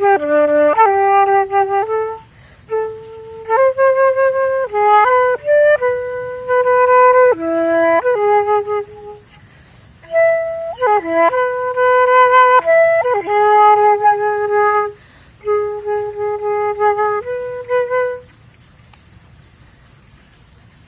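Solo flute playing a slow improvised melody of held notes in short phrases with brief pauses, stopping about 18 seconds in. A faint steady hiss lies underneath throughout.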